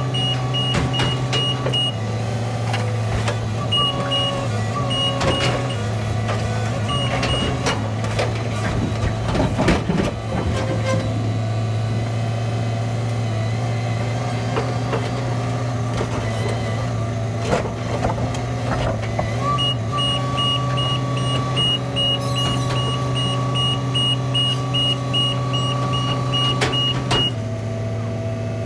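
Engine of a rail-mounted tie-handling crane on a maintenance-of-way work train running steadily, with a high warning beep repeating about two or three times a second that sounds at the start, briefly in the first seconds, and again steadily from about twenty seconds in. A run of knocks and clanks comes about eight to ten seconds in as the grapple works.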